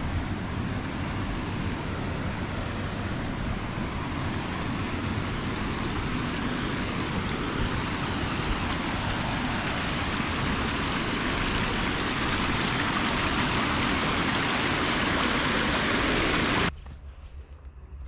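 River water rushing over stones and a low weir: a steady, even rush that grows a little louder, then cuts off suddenly near the end to a much quieter background.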